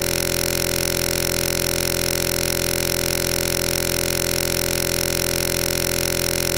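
A steady, unchanging buzzing drone with many overtones that never varies in pitch or loudness.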